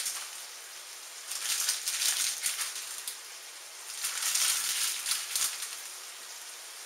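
Lil' Smokies cocktail sausages sizzling and crackling in hot olive oil in a skillet, the sizzle swelling louder twice.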